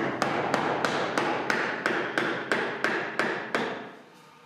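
Round wooden mallet striking a chisel driven into the joint under an old wooden cupboard's cornice: about a dozen even blows, about three a second, stopping a little before the end.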